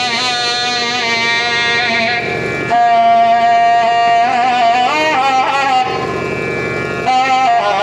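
Nathaswaram playing a slow passage in raga Sindhu Bhairavi: long held notes with sliding ornaments. The melody drops out for about a second near the end, then comes back in.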